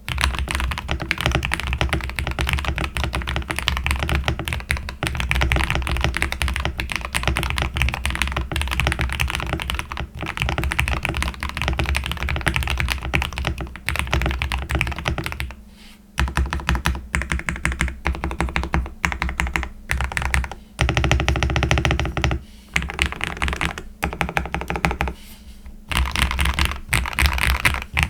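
Fast typing on a GMK67 mechanical keyboard with hand-lubed linear red switches and PBT keycaps: dense, rapid keystrokes broken by a few short pauses.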